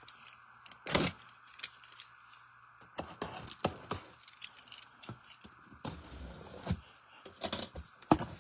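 Scattered taps, clicks and scrapes of cardboard trading-card boxes and packaging being handled and set down on a table, the loudest knock about a second in, over a faint steady hum.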